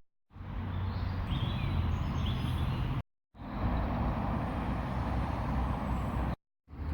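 Outdoor ambience: a steady low rumble with a few faint high chirps about one to two seconds in. It breaks off twice for a split second of silence where the recording cuts.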